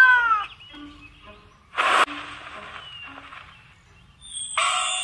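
A small cat-like creature's drawn-out mew, falling in pitch and fading out within the first half second. About two seconds in comes a short hissing whoosh that cuts off suddenly. From about four and a half seconds a bright, shimmering chime rings on.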